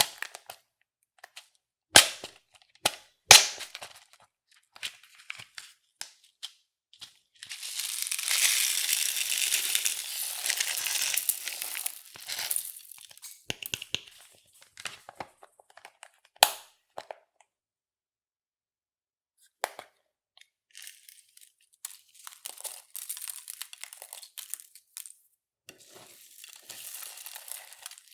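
Clear slime being worked by hand with makeup and glitter mixed in: sticky crackling and rustling. There are sharp clicks about two and three seconds in and again after about sixteen seconds, a dense stretch of crackling from about seven to twelve seconds, and softer crackling near the end.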